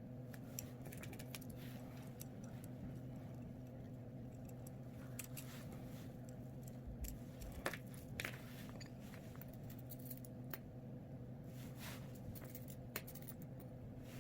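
Faint, scattered light clicks and taps of small crafting parts being handled, over a steady low electrical hum.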